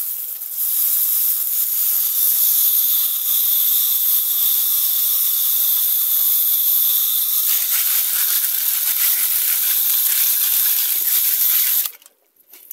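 Garden hose spray nozzle jetting water onto tumbled rocks in a wire-mesh sieve, rinsing the tumbling grit off them: a steady, loud hiss of spraying water that stops abruptly about a second before the end.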